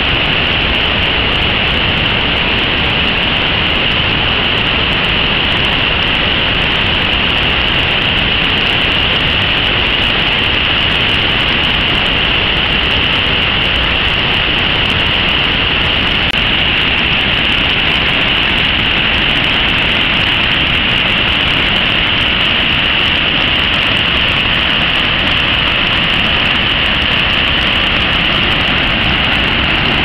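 Steady, unbroken rush of fast-flowing water, loud and even throughout.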